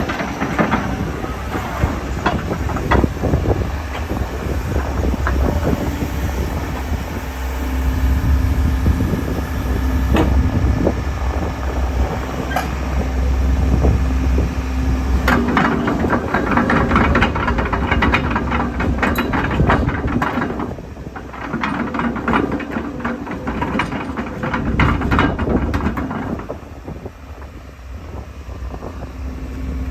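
JCB JS160LC tracked excavator's diesel engine running with a steady low rumble. It is joined by two long spells of rattling, metallic clatter, one starting about halfway through and a shorter one later.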